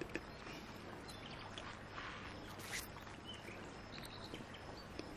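Quiet background room tone: a faint steady hiss with a low hum and a few soft ticks.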